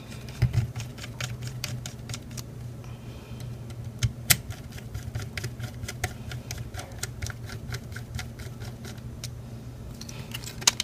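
Small precision screwdriver turning screws into a metal hard-drive caddy: a rapid run of small clicks and ticks, with two sharper clicks about four seconds in, over a steady low hum.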